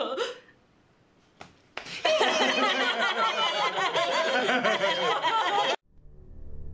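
A group of men and women laughing loudly together, several voices at once, breaking out about two seconds in after a brief hush. The laughter cuts off abruptly near the end.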